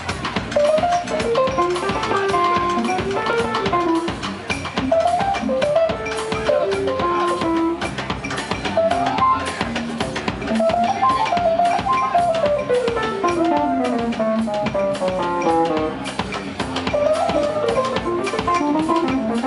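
Live traditional jazz band playing: drum kit, bass guitar and keyboard under a lead melody that steps and slides up and down, with one long falling run about halfway through.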